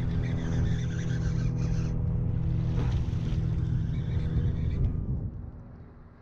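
Bow-mounted electric trolling motor of a bass boat humming steadily, then shut off about five seconds in, with splashing from a hooked largemouth bass fighting at the surface in the weeds.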